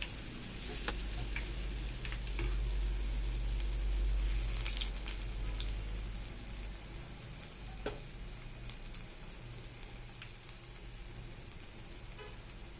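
Batter-coated bread pakora deep-frying in hot oil: a steady sizzle with scattered crackles and pops, louder in the first half and settling lower later on.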